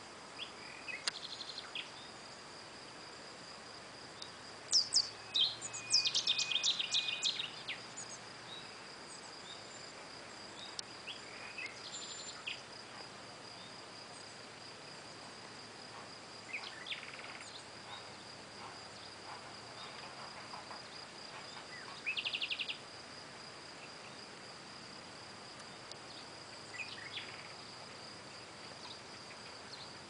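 A steady high insect trill with short bursts of bird calls and song over it. The loudest is a quick run of notes about five seconds in, and a short trill comes about twenty-two seconds in.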